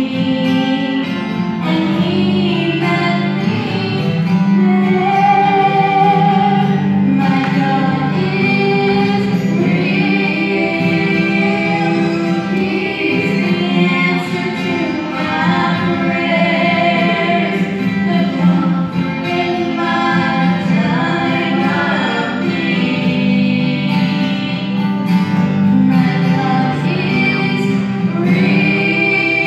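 A woman singing a song live into a microphone, accompanied on acoustic guitar.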